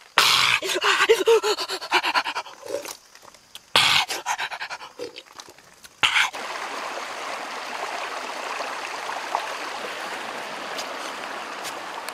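A man gulping coconut water noisily from a green coconut, with loud breathy gasps and pants between swallows. About six seconds in, a steady rush of flowing stream water takes over.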